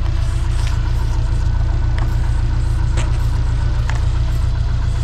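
Greyhound Scenicruiser bus's diesel engine idling steadily with a low rumble. A few short scrapes are heard as frost is cleared off a side window.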